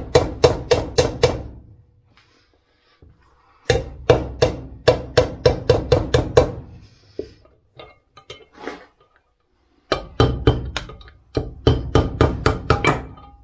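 A hammer striking a drift to drive a ball bearing out of a lathe headstock casting: three quick runs of ringing metallic blows, about four a second, with short pauses between the runs.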